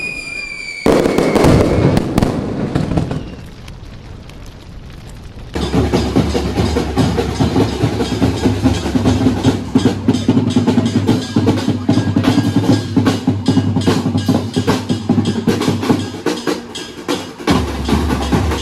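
A long string of firecrackers, a 3000-round sawa, going off in a rapid, dense run of cracks from about five and a half seconds in, after a loud burst about a second in. Music plays underneath.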